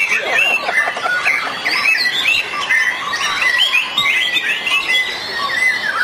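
Many white-rumped shamas singing at once, a dense tangle of overlapping whistles, quick trills and harsh chattering phrases, the busy sound of a songbird contest.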